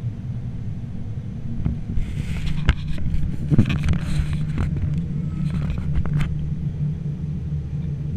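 Distant low, steady rumble of a Boeing 787-9's Rolls-Royce Trent 1000 jet engines at takeoff power during the takeoff roll. Several sharp clicks and knocks come between about two and six seconds in.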